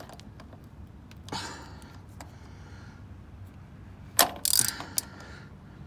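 Ratchet wrench with a socket on the nut at the bottom of a car's spin-on oil filter: scattered clicks of the ratchet and metal tool handling. There is a sharp knock just past four seconds in, followed by a brief rattle and one more click.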